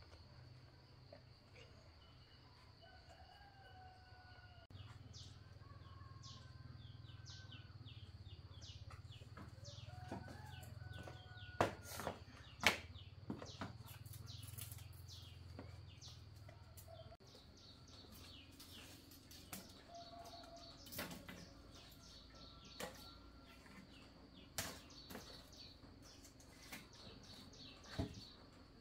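Quiet rural ambience with birds calling faintly now and then, and sharp clacks of dry sticks and firewood being handled, the two loudest about twelve seconds in.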